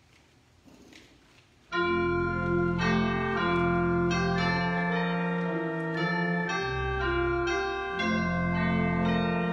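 Quiet room for nearly two seconds, then organ music starts suddenly and plays on in held chords over sustained bass notes.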